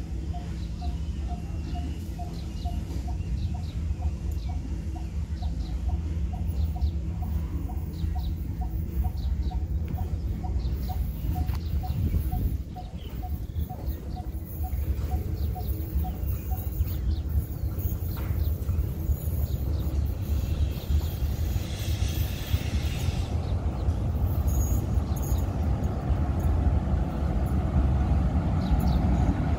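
Diesel-hauled freight train approaching, its low engine rumble growing louder over the last several seconds. Through the first half a steady series of short, clear tones repeats about twice a second.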